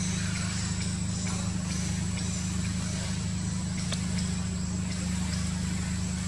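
A steady low mechanical hum that holds an even level throughout, with a thin high tone above it and a few faint ticks.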